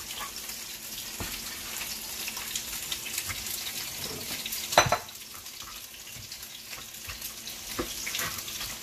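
Oil sizzling steadily as smoked pork bones fry in a pot, with a few knocks as a cleaver cuts sausage on a plastic cutting board; one sharp, louder knock comes about five seconds in.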